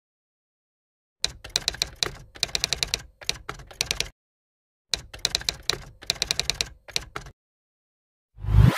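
Typing sound effect: two runs of rapid key clacks, then a rising whoosh near the end.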